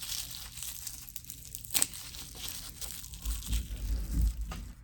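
Shipping packaging crinkling and tearing as it is pulled off an item by hand, with a sharp click a little under two seconds in and a few dull low thumps of handling around three to four seconds in.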